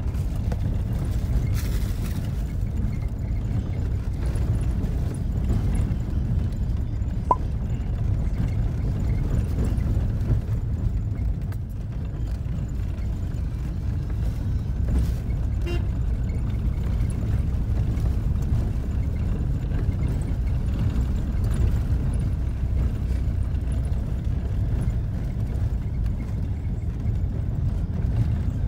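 Steady low rumble of a car driving, heard from inside the cabin: engine and road noise, with one brief click about seven seconds in.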